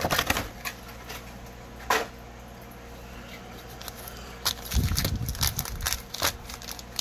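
Foil card packs and a cardboard hobby box being handled: rustling and tapping near the start, one sharp tap about two seconds in, then a run of rustles and soft bumps from about halfway to near the end, over a faint steady hum.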